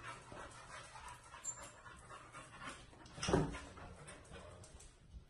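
Pit bull panting faintly, with one short louder sound about three seconds in.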